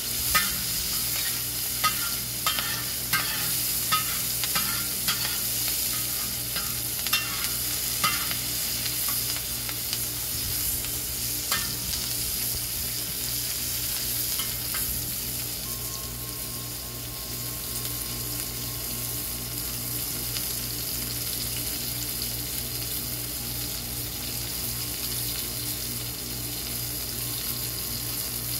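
Diced onions sizzling on a discada, a steel plow-disc wok, over charcoal. A metal spatula scrapes and taps against the disc about once a second for the first twelve seconds or so, then the sizzling goes on steadily alone.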